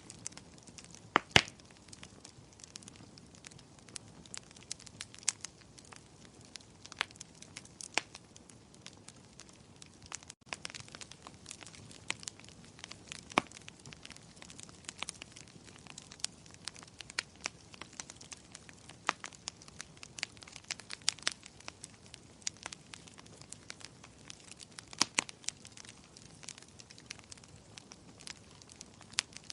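Wood fire crackling in a fireplace: irregular sharp pops and snaps, several a second, over a faint steady hiss. The loudest pops come about a second in and again near the end, with a momentary dropout about ten seconds in.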